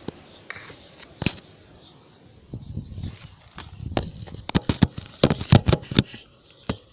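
Handling noise from a phone being moved right at its microphone: sharp clicks, knocks and rubbing, one knock a little over a second in and a quick cluster of them from about four to six seconds in.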